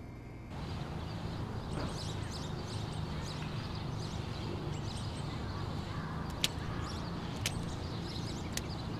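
Outdoor garden ambience that starts about half a second in: a steady low hum under short high chirps, with a couple of sharp clicks.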